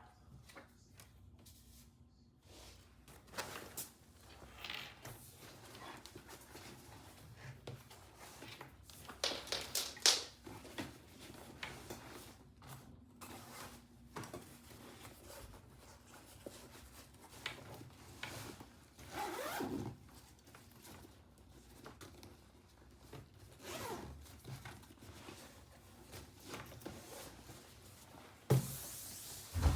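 Scattered handling sounds: zipping and rustling, with brief scratchy sounds coming irregularly.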